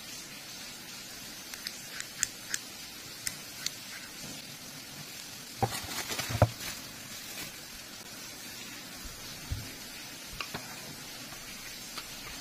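Unboxing handling sounds: scattered small clicks and taps as the parts of a camera mount are handled, then a cluster of crinkling and knocks as bubble wrap is pulled open about six seconds in, the loudest part, followed by a few more taps. A steady hiss runs underneath.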